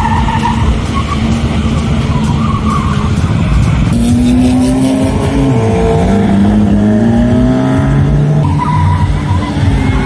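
A vehicle's engine revving hard during a burnout, with tyres squealing. The engine pitch dips about halfway through and then climbs again.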